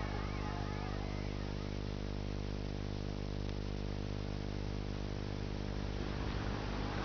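A low steady hum made of many evenly spaced tones, with a faint warbling tone dying away in the first second.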